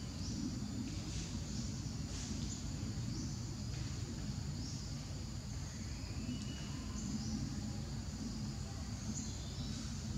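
Outdoor background: a steady low rumble with short, high chirps repeating irregularly about once a second.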